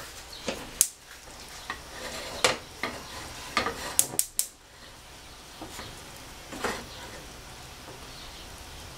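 Butter sizzling in a stainless steel skillet as flour goes in to start a roux, with a few sharp knocks against the pan, three of them in quick succession about four seconds in.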